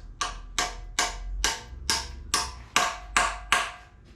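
Hammer striking metal in a steady series of about nine ringing blows, two to three a second: driving a socket down onto a seized, rusted exhaust manifold bolt on an LS engine.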